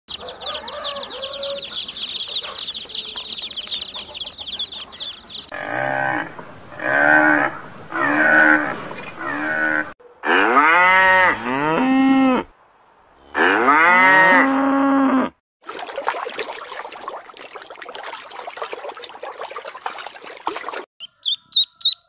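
A string of different animal calls, one after another. First a fast, high trill for about five seconds, then four short calls about a second apart. Next come two long calls that rise and fall in pitch, a few seconds of even hiss, and rapid repeated chirps near the end.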